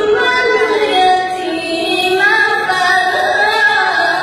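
A woman reciting the Quran in a melodic, sung style, holding long drawn-out notes that glide slowly up and down with ornamented turns.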